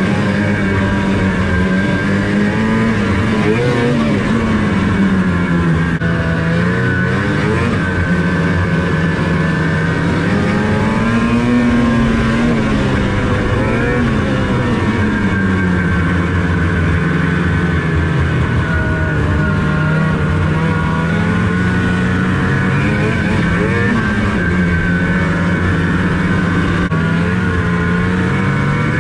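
2005 Ski-Doo Rev Renegade snowmobile's 600 HO SDI two-stroke twin running under way, its revs rising and falling several times as the throttle is worked.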